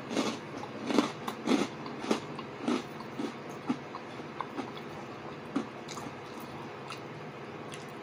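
Close-up chewing and lip-smacking of a man eating a mouthful of frittata: a quick run of sharp wet smacks about twice a second, thinning out and fading about halfway through.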